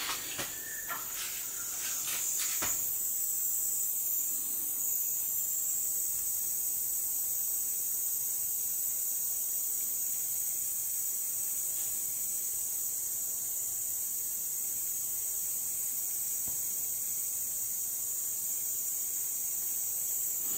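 Steady high-pitched hiss that grows a little stronger about two and a half seconds in and then holds, with a few light clicks in the first few seconds.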